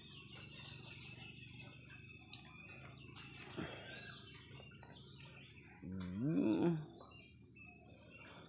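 Steady chorus of insects, a pulsing high trill, with a few brief bird chirps. About six seconds in, a louder short pitched sound, rising and falling, like a voice.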